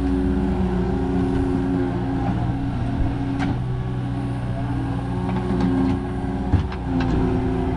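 Skid steer engine running steadily while grading, with a few short sharp clanks about three and a half and six and a half seconds in.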